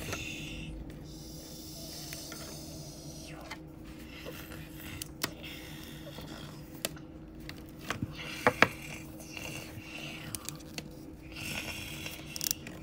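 Plastic fashion dolls being handled and moved about: light scraping and rustling of doll clothes, with a few sharp plastic clicks and knocks, the loudest two close together a little past the middle, over a faint steady hum.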